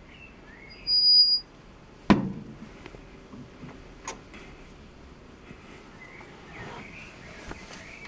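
A single high electronic beep about a second in, then a sharp knock a second later and a smaller click, over faint birdsong in the background.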